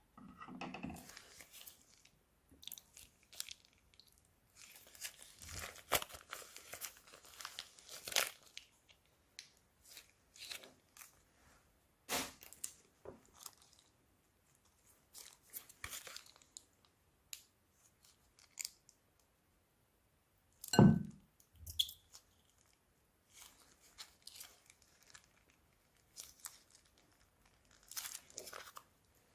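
Crinkly plastic bags and slime being squeezed and handled by hand, crackling and crunching in irregular bursts, with one much louder, deeper thump about two-thirds of the way through.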